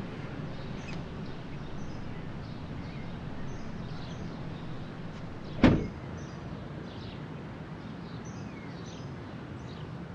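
A car boot lid slammed shut once: a single heavy thud about halfway through. Behind it is a steady outdoor background with faint bird chirps.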